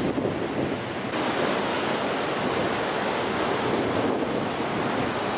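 Ocean surf washing on the beach, a steady rushing hiss with wind buffeting the microphone; the hiss grows brighter about a second in.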